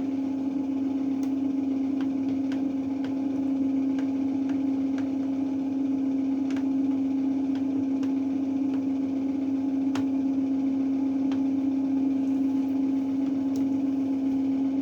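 Beko WRE7532XO washing machine running with a steady, even hum and a few faint clicks.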